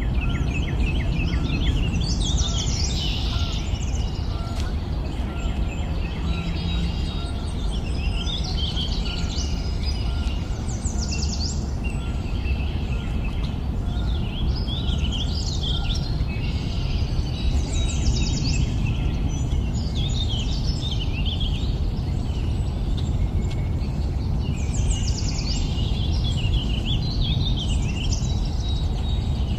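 Wild birds singing, with phrases of quick rising and falling notes every few seconds, over a steady low background rumble.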